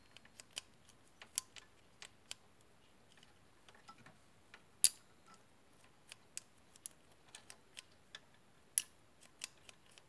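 Irregular light clicks and taps of small hard computer parts being handled, with sharper clicks about five and nine seconds in.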